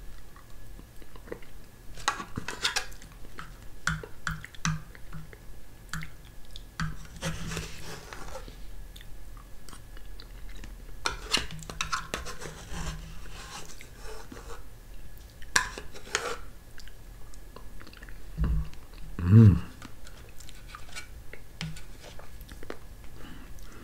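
Eating a gelatin snack from a small plastic cup with a metal teaspoon: soft mouth and chewing sounds, with light clicks and scrapes of the spoon against the cup as it is scraped out. A short hummed voice sound comes about three-quarters of the way through.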